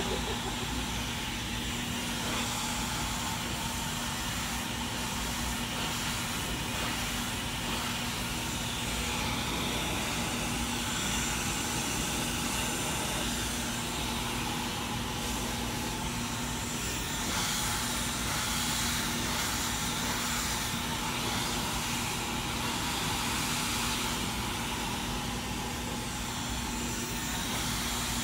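Handheld hair dryer running steadily, a constant rush of blown air over a low motor hum, as hair is blow-dried over a round brush.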